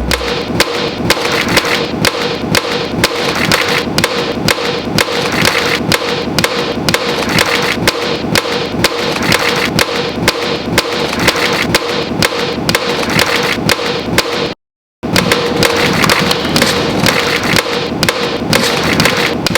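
Sounds of a deck of playing cards and its box (taps, flicks and riffles) cut together into a fast, even percussive beat that recreates an electronic song, with a steady tone underneath. The sound drops out completely for a moment about three-quarters of the way through.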